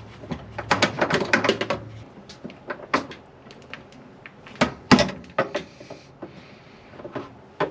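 Clicks, rattles and knocks of parts being handled as a worn suspension rod is worked loose from a tilted-back Whirlpool washing machine, the loudest knock about five seconds in. A low hum runs under the first two seconds.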